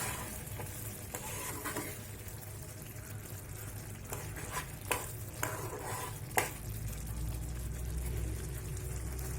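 A spoon stirring gudanna, a thick rice, jaggery, milk and coconut mixture, in a pan on the stove, with a few sharp knocks of the spoon against the pan over a steady low sizzle. A low hum grows louder about seven seconds in.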